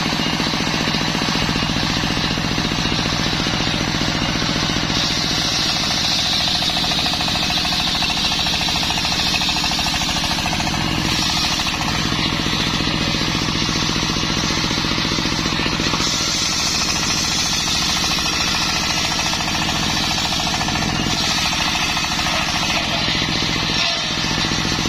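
Circular saw bench ripping waru (sea hibiscus) wood into laths, with a fast, steady mechanical chatter throughout. A high cutting noise strengthens over two long stretches, as the blade passes through the wood.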